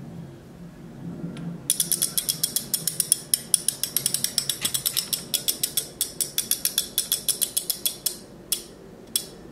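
A wind-up music box in a Delft blue porcelain windmill being wound: a fast, even run of sharp ratchet clicks starts about two seconds in and stops near the end, with two last single clicks. Soft handling rubs come before the clicks.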